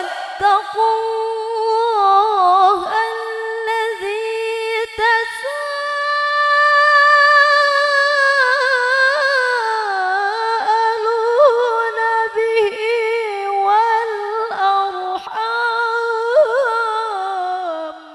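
A woman reciting the Quran in melodic tilawah style over a microphone, one long unaccompanied phrase with a richly ornamented, wavering pitch. It climbs to a higher, louder stretch about five seconds in and sinks back toward the end before stopping.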